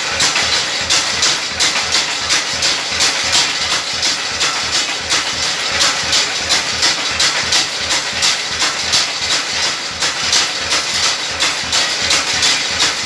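Motor-driven chilli-grinding machine running, its shaft grinding red chilli paste in a stone bowl: a loud, steady grinding noise pulsing in a fast even beat of several strokes a second.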